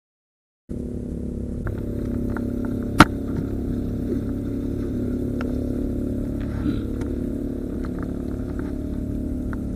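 A steady low engine-like drone with several held tones starts just under a second in. Small clicks sound over it, with one sharp click about three seconds in.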